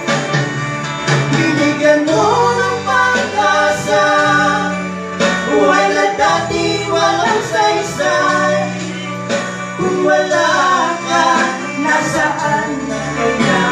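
Gospel song sung by a man and a woman into microphones over an instrumental accompaniment, heard through the hall's PA.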